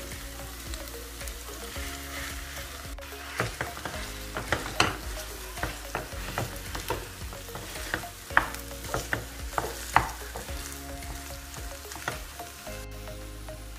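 Wooden spoon stirring and mashing boiled potatoes into a frying pan of sautéed onions and peppers in oil, over a sizzle. From about three seconds in to about ten seconds in, the spoon taps and scrapes sharply against the pan many times.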